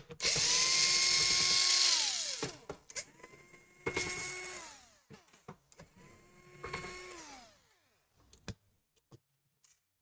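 Small cordless electric screwdriver backing out the screws of a laptop's bottom cover. It runs in three spurts, the first the loudest; each holds a steady whine, then winds down as the trigger is let go. Short clicks and taps come between the runs and near the end.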